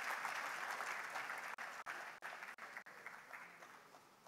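Audience applause, dying away over the last couple of seconds.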